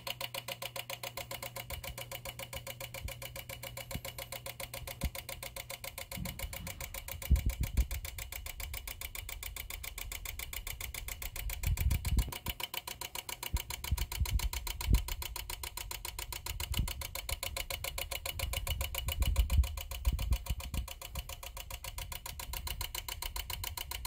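A failed Lutron HomeWorks Illumination dimmer module in a lighting dimmer panel making a rapid, even chattering buzz. The technicians presume its air-gap relay is going nuts. A few low knocks come in the middle.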